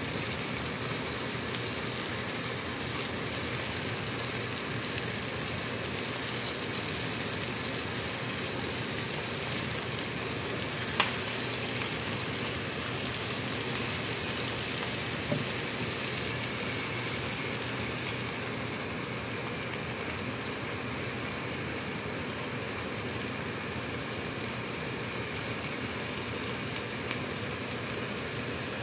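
Chicken breast with sliced green bell pepper and onion sizzling steadily in sesame oil in a pan. A sharp tap comes about eleven seconds in and a lighter one about four seconds later, and the sizzle eases a little after about eighteen seconds.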